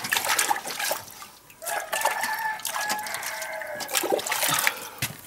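Hands scrubbing and splashing in a bucket of water. About two seconds in, a rooster crows once, a long call of about three seconds.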